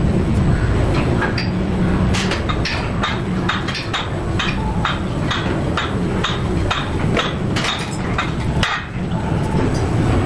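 Barbell plates and bar clinking sharply, about two to three times a second, through a set of lifts, starting about two seconds in and stopping near the end. A steady low rumble lies underneath.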